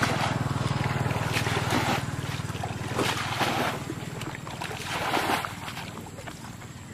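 Muddy ditch water splashing as a plastic bucket is dipped in and the water scooped and thrown out, in separate splashes a second or so apart, bailing the ditch to drain it. A steady low hum runs underneath.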